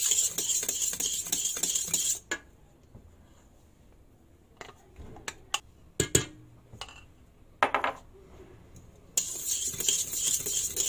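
Wire whisk scraping fast against a stainless steel mixing bowl, mixing egg yolks and meringue; it stops about two seconds in. A few clinks and knocks follow as a glass jug is tipped against the bowl to pour in the batter, the sharpest about six seconds in, and brisk whisking starts again near the end.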